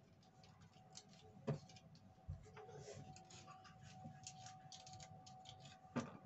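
Near-quiet room with a few faint, scattered clicks and taps of small objects being handled, and one low thump about two seconds in.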